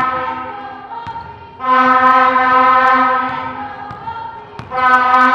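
A horn blown in long blasts on one steady note, a new blast about every three seconds, over the bounce of a basketball dribbled on the hardwood court.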